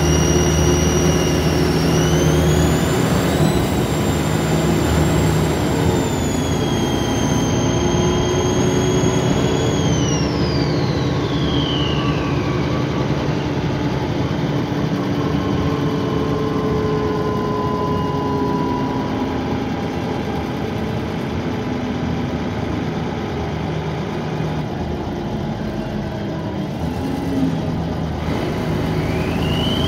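Dennis Trident 2 double-decker bus's diesel engine pulling, with an unusually loud, high-pitched turbocharger whine. The whine climbs and holds, slides down and fades about a third of the way in as the bus eases off, then rises again near the end as it pulls away.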